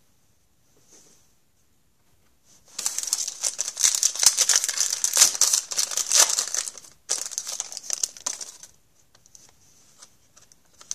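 Hockey-card pack wrapper crinkling and tearing as the pack is torn open and the cards pulled out: a dense run of quick crackles starting about three seconds in and lasting some six seconds, then a few faint rustles.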